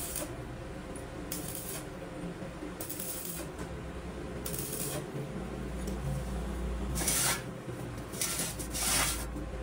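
Arc welder striking a series of short tack welds on the seam between a steel end cap and the cylinder shell: about seven brief crackling bursts, each about half a second long, the loudest near the end, over a low steady hum.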